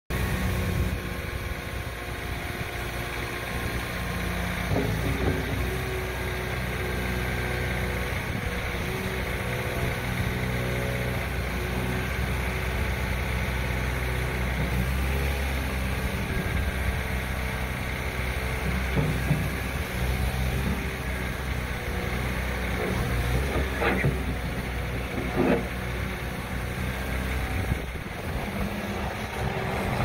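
Bobcat S595 skid steer loader's 2.4 L four-cylinder turbo diesel running steadily as the machine drives and turns on gravel, with a few short knocks, one about five seconds in and two near the end.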